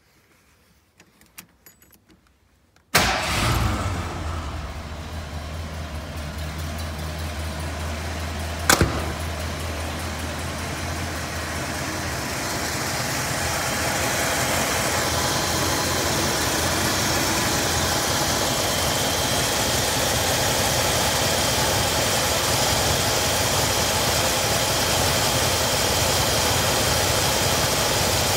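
A 1985 Ford Bronco's engine catches and starts about three seconds in after a few light clicks, then runs at idle. There is one sharp bang about nine seconds in. From about twelve seconds the running engine grows louder and steadier, heard from over the open engine bay.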